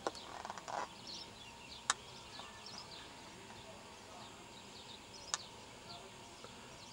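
Small birds singing in a steady stream of short, high, falling chirps. Three sharp clicks cut through, the loudest about two seconds in.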